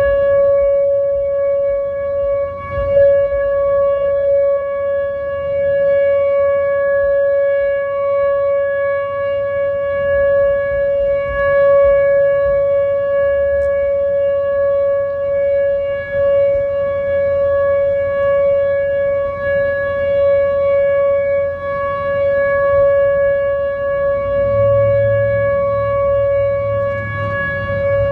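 Whelen electronic tornado siren sounding a long, steady, unwavering tone during a test of the emergency warning system. Low traffic rumble swells underneath near the end.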